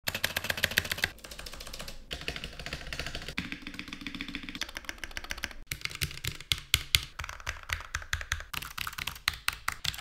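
Fast typing on mechanical keyboards in a series of short takes: first bright, crisp clicks from Gateron Blue clicky switches on a Keychron K2, then from about six seconds in lower, heavier clacks on a different compact keyboard.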